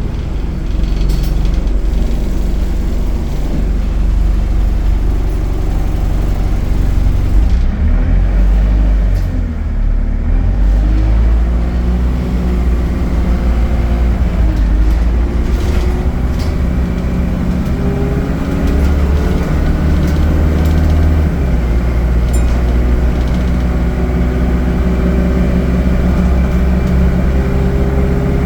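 ADL Enviro 200 bus's diesel engine running, then pulling away about seven seconds in. Its pitch climbs and falls several times as the Allison automatic gearbox changes up, then settles into a steady run after a drop about 21 seconds in.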